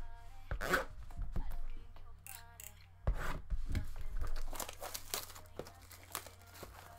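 Cardboard shipping case being handled and its packing tape torn: rough tearing strokes near the start and again about three seconds in, then a run of short scrapes and taps on the cardboard.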